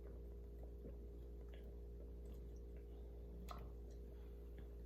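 Quiet room tone: a steady low hum with a few faint small clicks, the clearest about three and a half seconds in.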